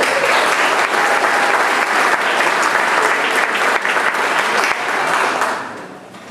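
Audience applause, loud and steady, fading out near the end.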